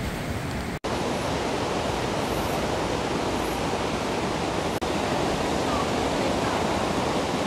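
Steady rushing wind and road noise of a car driving along a mountain road, broken by a brief dropout about a second in and a smaller one near the middle.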